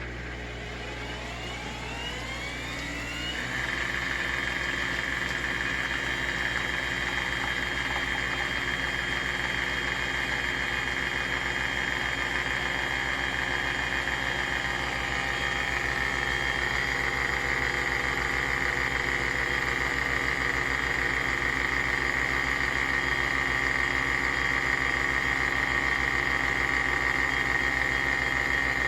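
Nespresso Vertuo coffee machine brewing. Its capsule-spinning motor winds up in a rising whine over the first three seconds or so, then holds a steady high whine, with a fast low pulsing from the pump beneath it.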